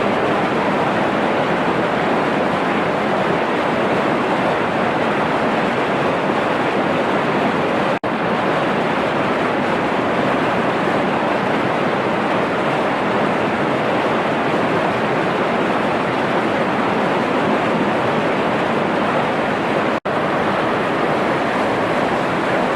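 Water pouring steadily over a small waterfall, a constant loud rush that cuts out for an instant twice.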